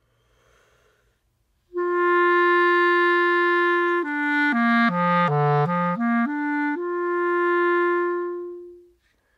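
Clarinet playing a full, steady long tone, then running quickly down a scale and back up to the same held note, which fades out near the end. This is the good tone of an embouchure that takes a medium amount of mouthpiece into the mouth.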